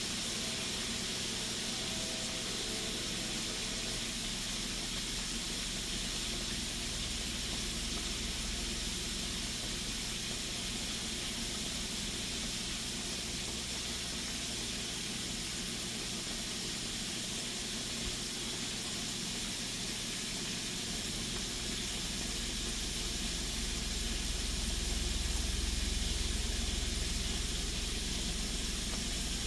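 Food frying in hot oil, a steady sizzling hiss. A low rumble joins in about two-thirds of the way through and swells slightly near the end.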